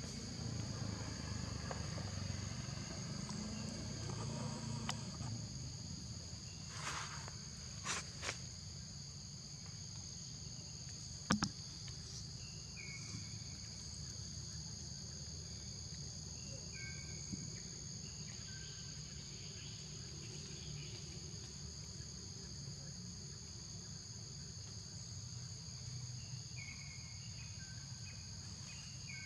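Steady high-pitched insect drone made of two constant tones, over a low rumble. A few sharp clicks cut through it, the loudest about eleven seconds in.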